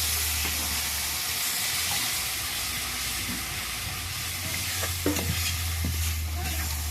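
Chicken curry in a pan sizzling steadily, the spiced meat and potato fried down and now taking water, while a spoon stirs it and knocks against the pan a few times near the end.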